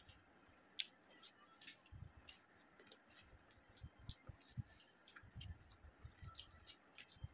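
Fingers mixing rice on a plate, making quiet, irregular soft wet clicks and squishes. A few faint low thumps come through underneath.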